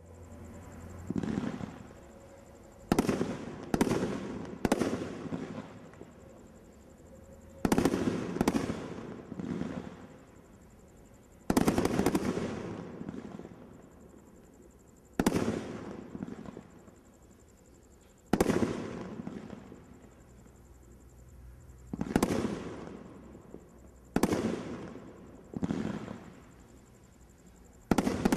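'Open Fire' consumer firework barrage cake firing its shots: loud sharp bangs every few seconds, some single and some in quick groups of two or three, each fading away over about a second.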